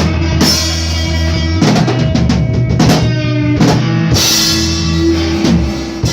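Live band playing: a drum kit with kick, snare and cymbal hits over sustained bass notes. A cymbal crash rings out about four seconds in.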